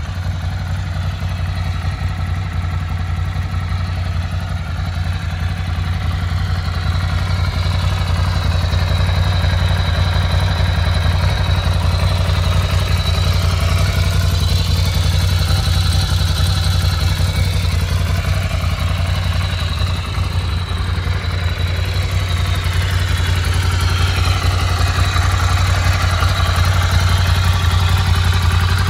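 2020 Ducati Scrambler Icon's air-cooled 803 cc L-twin idling steadily, growing a little louder toward the end.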